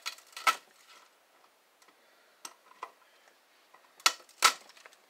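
Sharp clicks and snaps of hand pliers gripping and working at the neck and deflection yoke of a CRT picture tube. They come in three pairs, each pair about half a second apart, the loudest near the start and about four seconds in.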